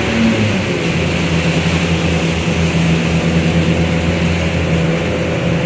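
Yamaha jet boat engine running steadily under way, its note dropping slightly about half a second in and then holding, over a steady rushing hiss.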